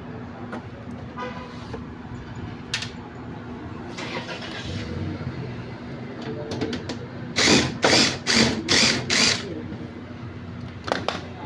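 Hand work on a washing machine's parts during dismantling: scattered clicks and knocks over a steady low hum, then a run of five loud, rough strokes about half a second apart in the second half.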